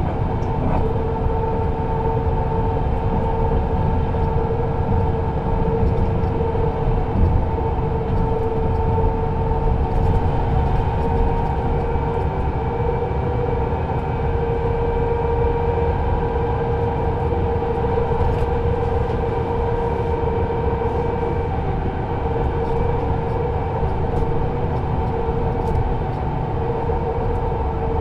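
Viseon LDD 14 double-decker coach heard from inside while under way: a steady engine drone with road and tyre rumble, holding an even speed with no gear changes.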